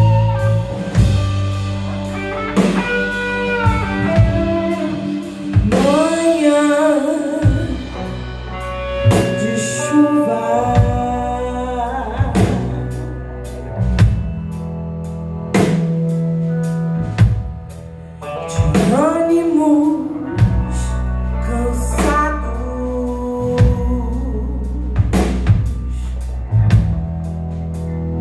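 Live rock band playing: electric guitars, electric bass and a drum kit, with a woman singing lead.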